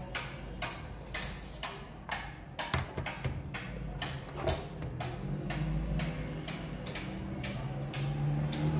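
Background music with a clock-like ticking beat, about two ticks a second, over a low sustained tone.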